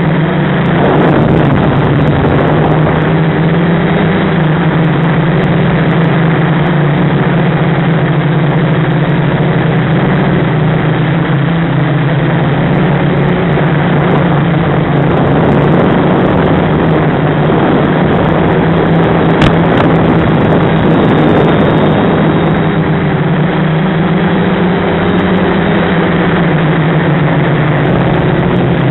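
Quadcopter's Sunnysky brushless motors and propellers buzzing steadily in flight, picked up by the onboard camera with a dense rushing noise; the pitch wavers a little with throttle.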